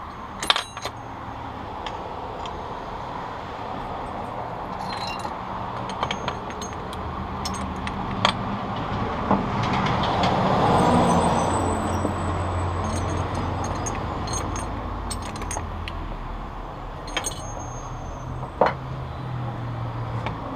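Scattered clicks and light metallic knocks of motorcycle gearbox shift forks, shift drum and guide being handled and tried in the engine case. Under them runs a steady low rumble that swells around the middle.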